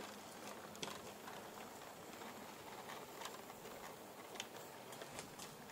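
Hornby OO gauge model of an EWS Class 60 locomotive hauling coaches along the track: a faint steady running hum with a few faint scattered clicks.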